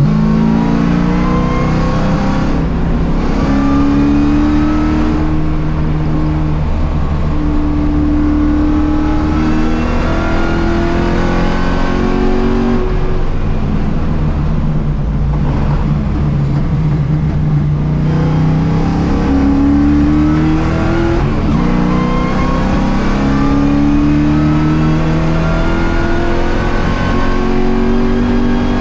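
Ford Mustang race car's engine accelerating on track, its pitch climbing and then dropping at each gear change, several times over. A stretch of lower, uneven revs comes in the middle before it climbs through the gears again.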